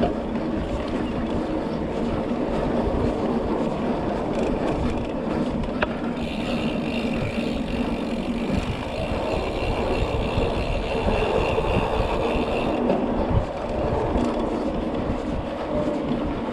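Mountain bike being ridden along a dirt trail: steady rolling tyre and wind noise from a rider-mounted camera, with a brief click about six seconds in.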